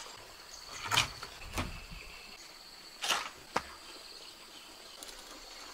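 Four short knocks, two of them with a dull thud, over a faint steady high-pitched insect trill.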